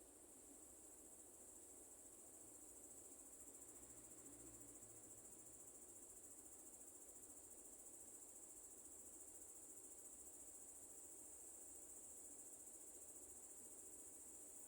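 Near silence, with a faint steady high-pitched hiss throughout.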